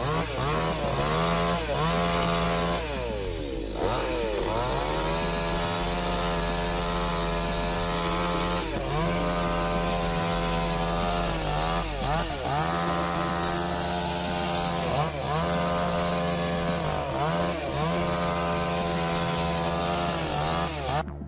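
Chainsaw running at high revs while cutting wood. Its engine note dips briefly and recovers again and again as the chain bites, with one deeper dip about three to four seconds in.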